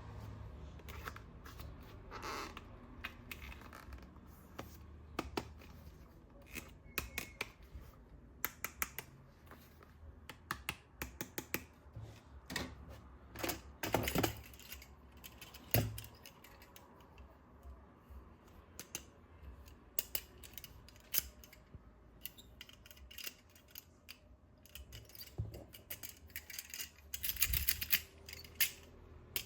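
Hard plastic toy parts and their packaging being handled: irregular clicks, snaps and taps with short spells of rustling.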